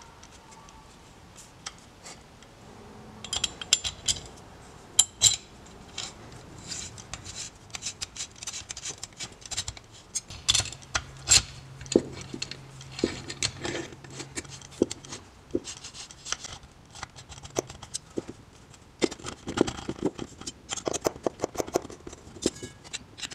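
Hand work with a 6 mm Allen key on the bolts of a driveshaft center-support carrier: irregular metallic clicks, taps and scrapes as the key seats in the bolt heads and the carrier halves are fitted together.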